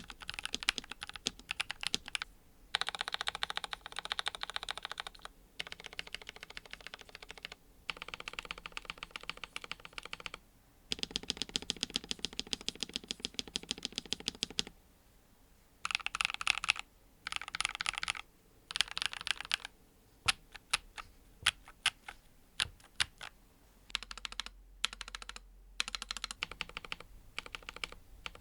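NuPhy Halo-series mechanical keyboard being typed on: runs of fast typing broken by short pauses, with slower, separate keystrokes for a few seconds in the latter part.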